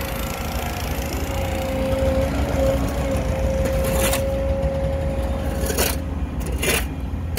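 Excavator engine running steadily, a low rumble with a constant whine over it. A few short scuffs come in from about four seconds on.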